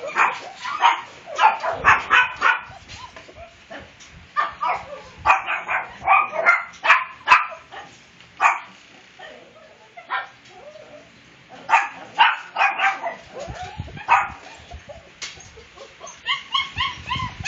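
Puppies yipping and whining in clusters of short, high calls, with brief lulls between the clusters.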